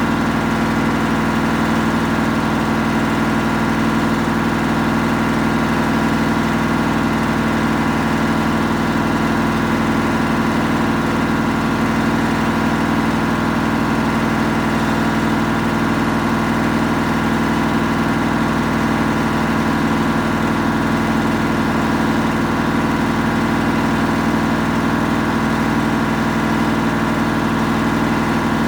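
Samsung EcoBubble washing machine running at a constant speed: a steady hum with a fixed pitch that does not change.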